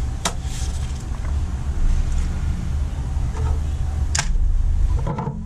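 Hands handling papers and small parts on a workbench: two brief, sharp rustle-clicks, about a quarter second in and about four seconds in, over a steady low background rumble.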